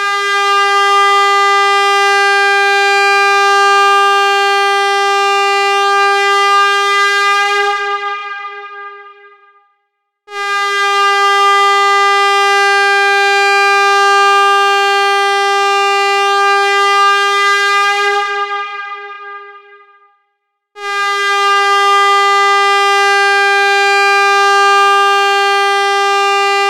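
Air horn sounding three long blasts at one steady pitch, each held for about eight seconds. The first two fade out, and the third is still going at the end.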